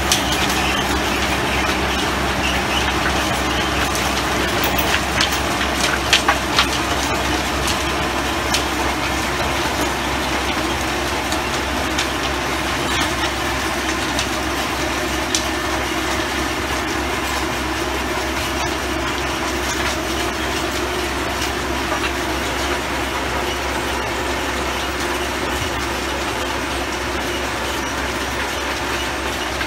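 Antonio Carraro TRX 9900 tractor's diesel engine running steadily under load while its rear rotary tiller churns the soil, with a few sharp clicks about five to seven seconds in. The sound fades slightly as the tractor moves away.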